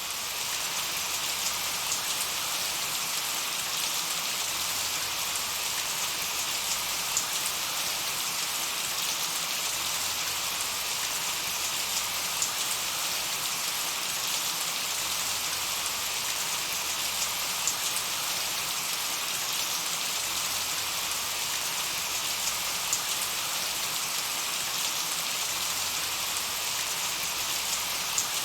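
Steady, gentle summer rain falling on a meadow, an even hiss with scattered small drop ticks.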